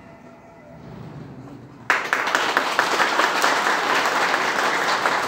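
Audience applauding, breaking out suddenly about two seconds in and then going on as loud, dense clapping.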